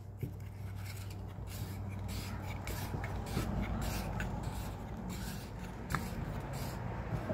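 Plastic side-cover knob of a Stihl GTA 26 mini chainsaw being screwed back down by hand: faint, irregular rubbing and light clicks as it turns, over a steady low hum.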